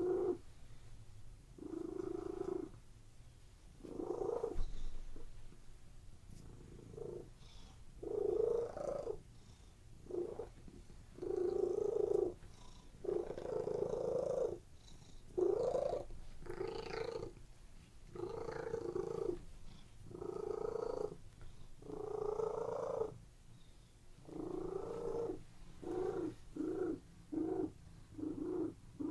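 Domestic cat purring, in a steady train of swells that follow its breaths, each about a second long; near the end the breaths come quicker.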